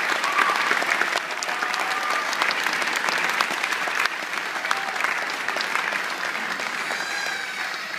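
Large audience and graduates applauding, with scattered whoops. The clapping slowly dies down near the end.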